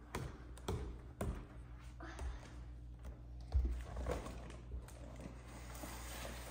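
A few footsteps on wooden stair treads, then cardboard boxes and a plastic bag being shuffled and handled, with a dull thump about three and a half seconds in.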